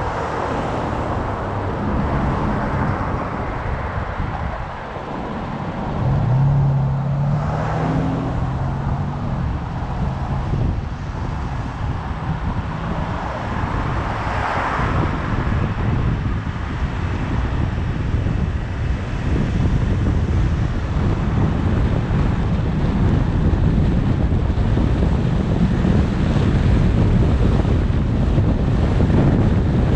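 Car driving, with steady road rumble and wind noise on the microphone. A brief low hum comes about six seconds in, and the wind grows louder toward the end.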